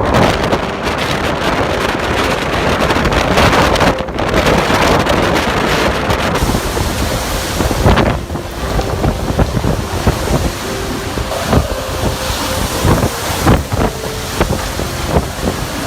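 Strong gusting wind blasting the microphone, a loud rushing noise. Its character changes abruptly a couple of times, with a few knocks in the later part.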